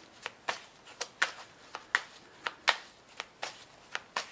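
Tarot deck being shuffled by hand: a steady run of short card slaps, about four a second.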